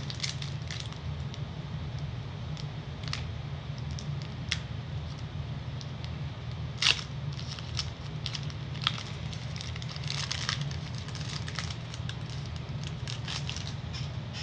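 Foil wrapper of a Pokémon TCG booster pack crinkling and tearing as it is opened: scattered crackles and snaps, the sharpest about seven seconds in, over a steady low hum.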